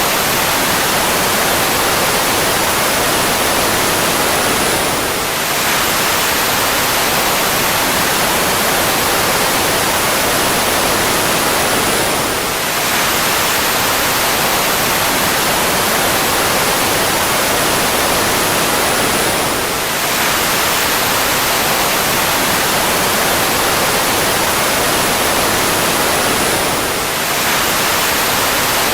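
Fighter jet engine running steadily: a loud, even rushing noise with a thin high whine sliding slowly downward. It repeats as a loop, with a short dip in level about every seven seconds.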